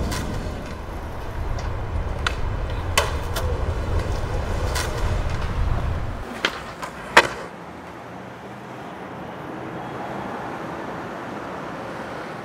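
Skateboard wheels rolling on concrete with a steady low rumble, broken by a few sharp clacks of the board. The rumble stops about six seconds in, and a few more clacks follow, the loudest a sharp crack about seven seconds in. After that only a faint even hiss remains.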